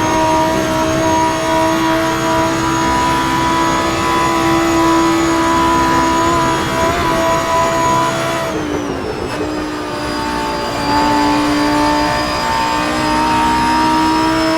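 Lamborghini Huracán Performante's naturally aspirated V10 running hard at high revs, its pitch slowly climbing. About eight and a half seconds in the note drops and eases off briefly, then it pulls again with rising pitch.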